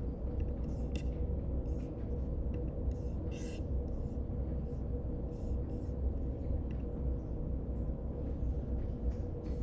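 Room tone: a steady low rumble with a faint steady hum, and a few faint ticks and rustles.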